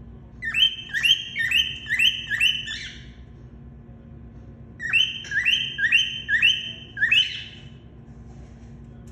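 Grey cockatiel calling: two runs of about six quick whistled notes, each a sharp downward chirp into a short held note, with a pause of about two seconds between the runs. A faint steady hum underneath.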